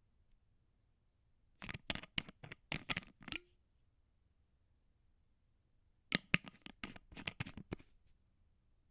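A plastic screw cap being twisted on the threads of a glass bottle: two bursts of quick clicks, the first ending with a brief low ring.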